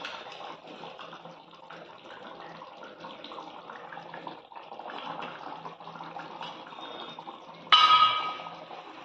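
Curry gravy simmering in a steel kadhai on a gas stove, a steady bubbling hiss. A little before the end comes a sudden loud, ringing metal clank as the pan is handled on the stove.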